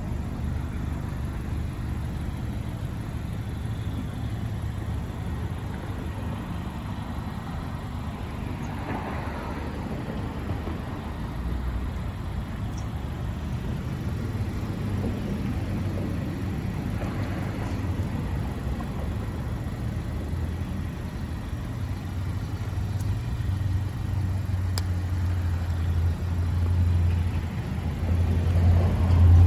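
2016 Mazda MX-5 Miata's 2.0-litre four-cylinder engine idling steadily, a low hum. It grows louder near the end.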